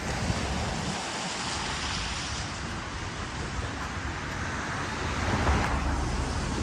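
Wind buffeting the microphone over a steady wash of city traffic noise, with a stronger gust near the end.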